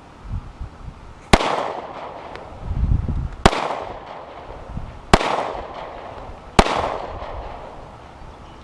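Four shots from a Glock 43 9 mm pocket pistol, fired slowly one at a time about one and a half to two seconds apart. Each is a sharp crack with an echo that fades.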